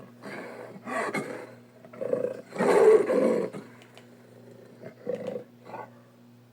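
Big-cat-style roar and growl sound effects for an imaginary leopard–gazelle creature: a string of about six calls, short ones at first, a longer and louder one about three seconds in, then two brief ones near the end.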